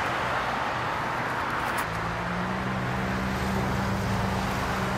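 Steady road traffic noise, with a low engine hum joining about two seconds in.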